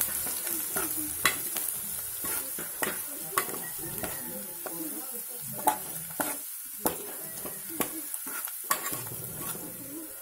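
Chopped onions and green chillies frying in hot oil in an aluminium pot, sizzling with a steady hiss while a spatula stirs them, scraping and tapping irregularly against the pot.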